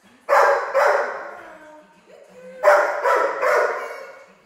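Golden retriever barking: two pairs of loud barks, each fading away with the echo of a large hard-floored room.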